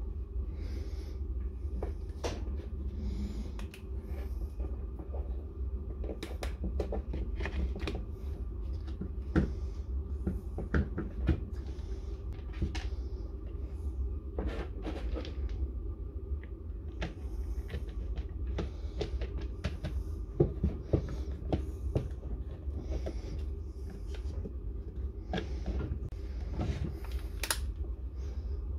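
Scattered clicks, knocks and short rustles of plastic and metal parts being handled on a Dewalt D21570 core drill under repair, over a steady low hum.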